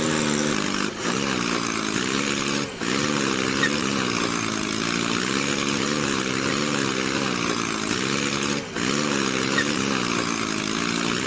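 A small motor running steadily with a hiss, its pitch wavering up and down about once a second, briefly dipping three times.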